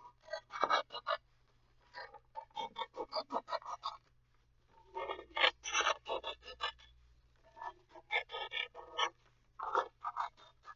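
Scissors cutting through a sheet of paper around a circle: about five runs of quick snips with short pauses between them, along with the paper rustling.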